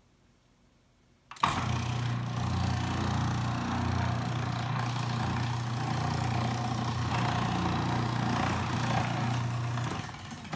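Breville Sous Chef 16 Peel & Dice food processor switching on about a second and a half in and running at a steady whir while it slices a leek through its 2 mm slicing disc, then shutting off shortly before the end.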